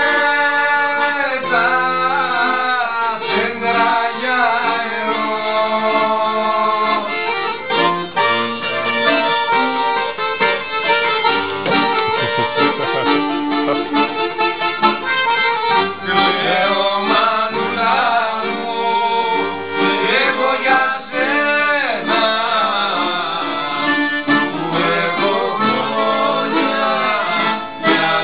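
Live Greek folk music: a piano accordion leads, with mandolin and bouzouki-type lutes plucked along with it.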